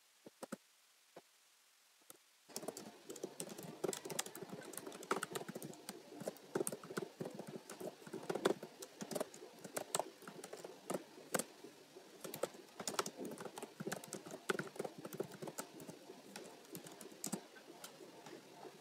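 Typing on a computer keyboard: a few separate key clicks in the first two seconds, then quick, irregular keystrokes.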